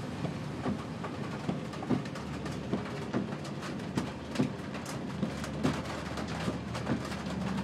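Heavy rain on a vehicle's roof and windshield: a steady wash of rain with irregular drops knocking, about two a second, over a low steady hum.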